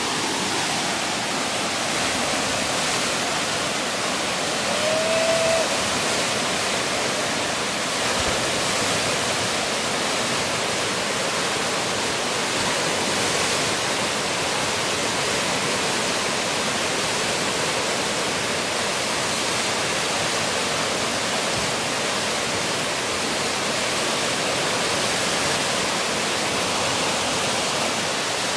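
Steady roar of river whitewater rapids pouring over rocks around a standing wave, with one short pitched call about five seconds in.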